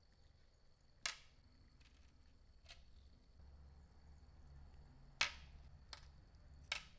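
Metal tweezers clicking against a glass jar and setting small wet brass fittings down on a wooden board: about five light, sharp clicks and taps, the loudest a little past halfway.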